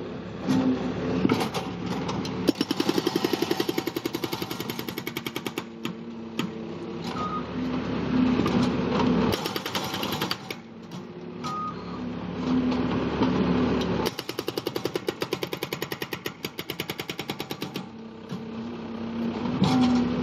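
Skid-steer-mounted hydraulic breaker hammering in rapid repeated blows, stopping and restarting several times, over the loader's steady diesel engine.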